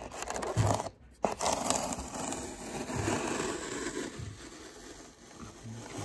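Crinkling, tearing and scraping as masking tape and wax paper are worked off a styrofoam surface by hand, with fingers rubbing the foam; the sound briefly drops out about a second in.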